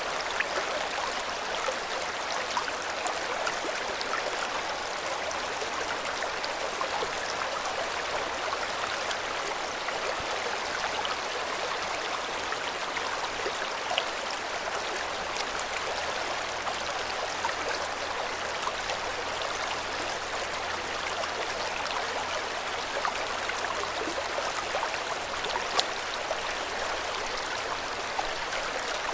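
River water flowing steadily over stones, a constant rushing with small splashes and gurgles.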